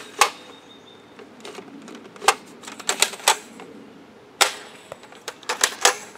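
Sharp plastic clicks and clacks of a Nerf Vortex disc blaster being primed and fired, about ten in all, irregularly spaced, with a quick run of them near the end.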